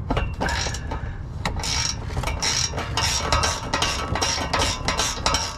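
Repeated metal clinks and taps, about three a second, as a ratchet and socket extension work a bolt right beside a thin stainless steel exhaust pipe, with a ringing note between the strokes; it sounds like a tin can.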